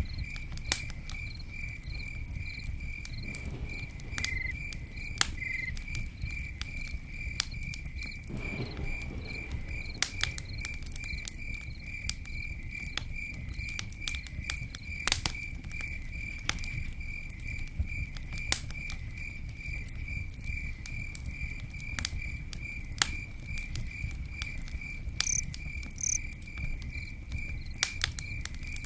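Campfire crackling, with scattered sharp pops over a low steady rumble of burning wood. A cricket chirps in an even, rapid rhythm of about three chirps a second.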